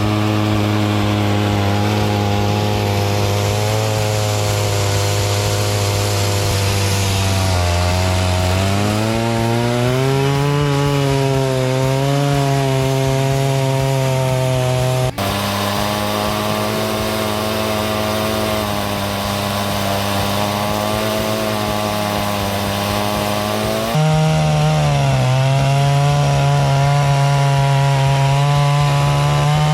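Holzfforma G660's 92cc two-stroke chainsaw engine running at full throttle while ripping a log lengthwise on an Alaskan chainsaw mill. The engine note rises and wavers about eight seconds in, and the sound changes abruptly twice, about halfway through and near the end.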